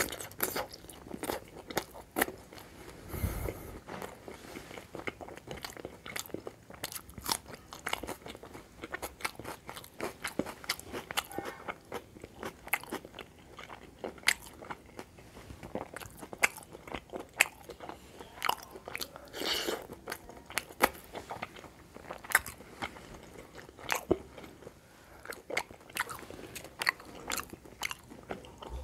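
Close-miked eating by hand: chewing and biting with many wet mouth clicks and smacks at an irregular pace. There is a dull thump about three seconds in.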